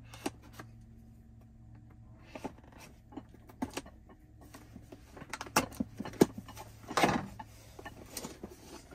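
A small knife slitting the seal of a cardboard product box, with scattered clicks and scrapes of the cardboard being handled. They grow busier toward the end, with a longer scraping rustle about seven seconds in as the box is pulled open, over a steady low hum.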